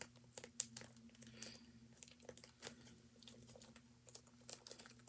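Plastic zip-top baggie being pressed shut by hand: faint, irregular crinkling of the plastic with small clicks from the zipper seal.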